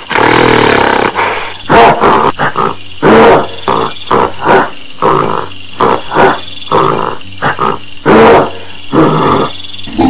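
Gorilla vocalizing angrily: a drawn-out call in the first second, then a string of short, loud grunts and barks, roughly one or two a second, with gaps between them.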